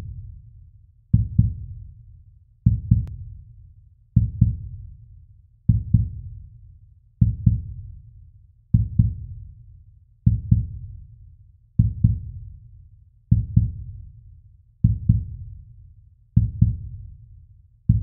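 Slow heartbeat sound effect: a low double thump, lub-dub, repeating steadily about every one and a half seconds, each pair fading out before the next.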